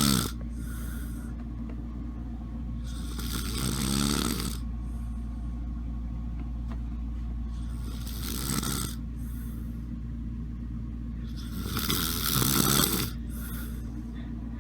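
A sleeper snoring, a rattling snore with airy breath noise about every four seconds, over a steady low hum.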